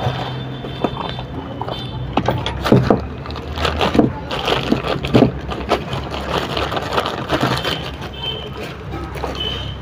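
A plastic bag and cardboard box being handled as a new gear is unwrapped: a run of irregular crinkling rustles and light knocks over a steady low hum.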